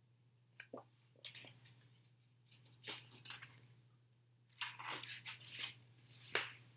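Pages of a paper picture book being handled and turned, in several short rustling bursts, over a faint steady hum.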